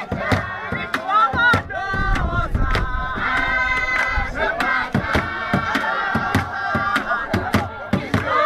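A group singing a Zulu ingoma dance song together, with sharp hand claps keeping a steady beat.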